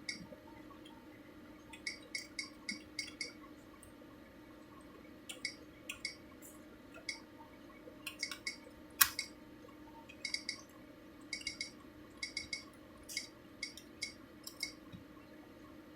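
Plastic keys of a Logitech SYU44109668 keyboard clicking in short quick runs of four or five presses, with pauses between runs and one louder, sharper click about nine seconds in.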